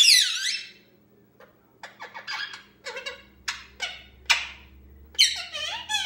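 Young male Indian ringneck parakeet calling: a loud squawk sliding down in pitch at the start, then a run of short chirps and clicks, and a wavering, warbling call near the end.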